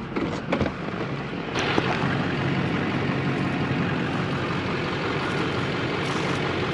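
A few knocks, then from about a second and a half in a steady noise of a pickup truck's engine idling with wind rushing over the microphone.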